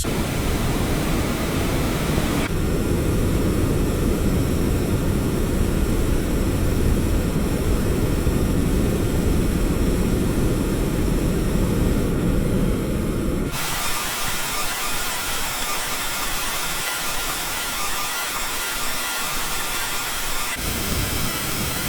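Underground railway station ambience: a train's steady low rumble under a hiss. About two-thirds of the way through it cuts abruptly to a thinner, hissing noise with the rumble gone.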